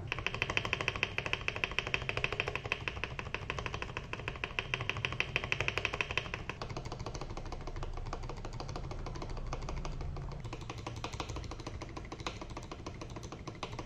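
Stabilized keys on a mechanical keyboard, fitted with Akko Red & Blue Samurai PBT double-shot ASA-profile keycaps, pressed in quick repeated strokes for a sound test. The clacking has a brighter edge for the first half, then turns duller.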